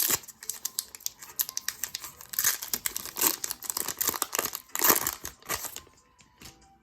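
Pokémon booster pack's foil wrapper crinkling and crackling as it is handled and torn open, loudest in a few bursts through the middle.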